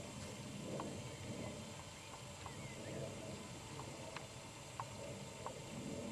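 Faint low crunching and rustling from a wild boar feeding in scrub, with short, high bird chirps scattered throughout.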